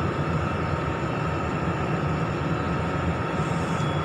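Steady background noise: a low rumble with a faint constant high tone running throughout.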